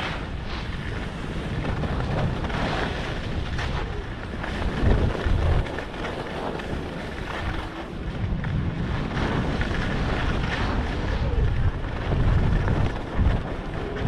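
Wind buffeting the microphone at skiing speed, gusting louder about five seconds in and again near the end, over the hiss and scrape of skis running on snow.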